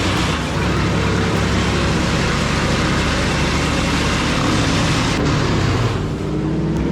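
Bandit wood chipper running steadily, an engine note low down with a loud rushing noise above it. The higher rush eases off about five seconds in.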